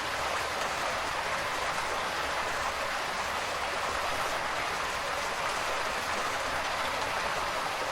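Steady rain falling, an even hiss of water without breaks.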